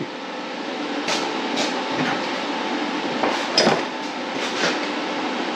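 A steady hiss runs throughout, with about six sharp metallic clinks and knocks scattered through it as a stick-welding electrode holder and rod are handled.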